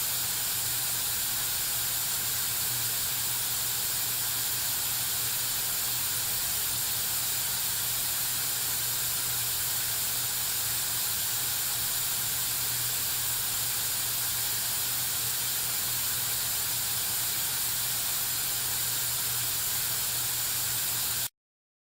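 White noise test signal played through a Sony SRS-XB22 Bluetooth speaker with Extra Bass mode on: a steady hiss, strongest in the highs. It cuts off suddenly near the end.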